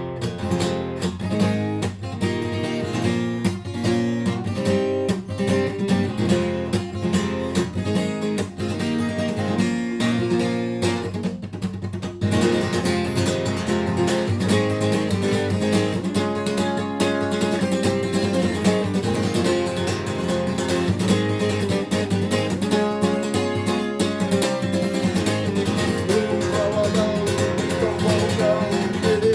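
Acoustic guitar strummed in a rhythmic pattern with sharp percussive strokes, the 'стук' (knock) strumming technique. About twelve seconds in, the playing turns fuller and more ringing.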